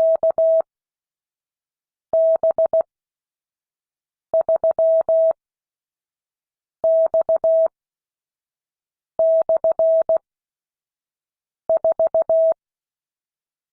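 Morse code practice sent as a single steady mid-pitched tone: six short groups of dots and dashes, each under a second, separated by long gaps of well over a second, the wide spacing used for learners copying by ear. Each key-down and key-up carries a faint click.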